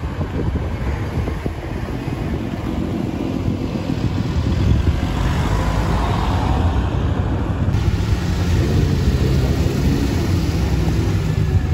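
Car engines running at low revs as cars roll slowly past one after another. Near the end a steadier, low engine note holds.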